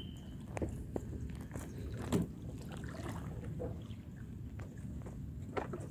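Wooden outrigger canoe being paddled on calm water: scattered light knocks and splashes of the paddle over a low steady rumble, with a sharper knock about two seconds in.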